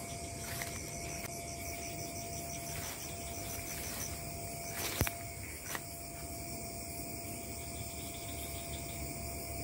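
Night-time forest insects calling together: several steady high trills, with a fast pulsing call in the first half, over a low rumble. A single sharp click about five seconds in, with a smaller one just after.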